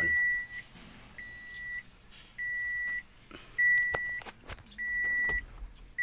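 Toyota Hiace's warning buzzer beeping with the ignition key on: one high steady tone about half a second long, repeating about every 1.2 seconds. A few light clicks fall between the beeps.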